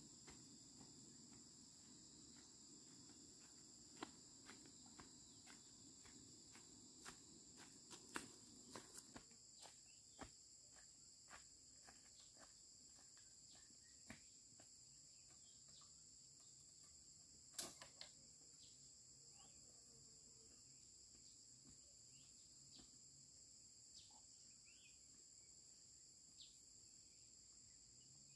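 Faint steady chirring of crickets, with scattered light clicks and taps, the loudest one about two-thirds of the way through.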